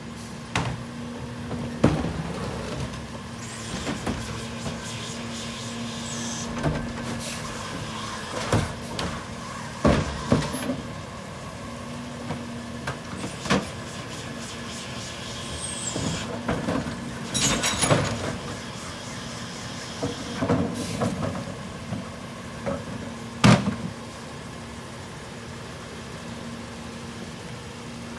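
Freightliner New Way rear-loader garbage truck idling with a steady hum while trash carts are tipped by hand into its rear hopper, giving a string of irregular knocks and thuds from carts, lids and trash hitting the hopper.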